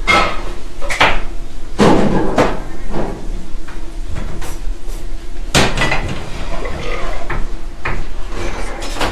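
Busy commercial kitchen clatter: irregular knocks and clanks of pots, pans and utensils on steel counters, about one a second, over a steady low hum.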